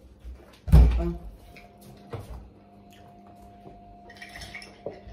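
A heavy thump on the table about a second in, then lighter knocks and handling sounds as a juice carton is opened and a glass of juice is handled, with a brief hiss near the end.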